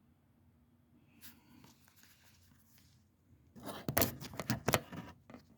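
Handling noise: faint scraping about a second in, then a burst of sharp clicks and rattles lasting under two seconds near the end.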